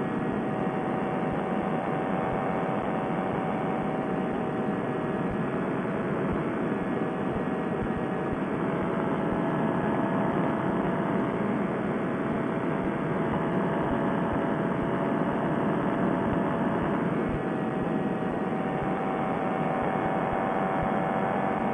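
Fresh Breeze Monster two-stroke paramotor engine and propeller running steadily at cruise power, a constant engine drone mixed with rushing air.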